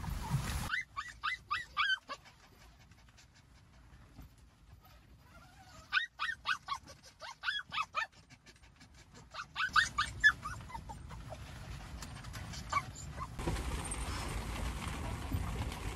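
Small dog whining and whimpering in short, high-pitched cries that rise and fall, in three clusters with quiet gaps between them. It is whining at being tied to the car's passenger seat.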